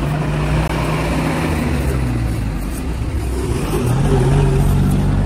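Motor vehicle engine idling with a steady low hum, its pitch rising a little between about three and a half and four and a half seconds in.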